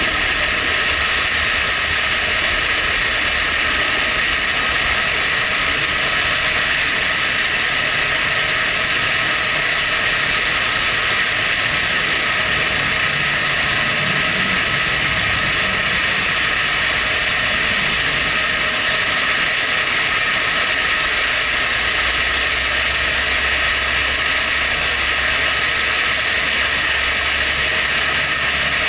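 Milling machine running steadily, its end mill cutting around the inside of a hole to open it up by a few thousandths.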